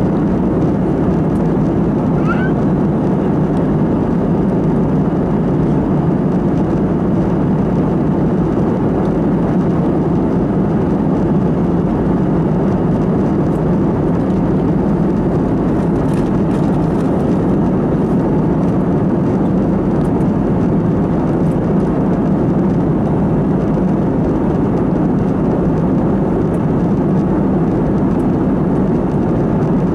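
Steady cabin noise of an Airbus A321neo in flight: engine and airflow noise heard from inside the passenger cabin.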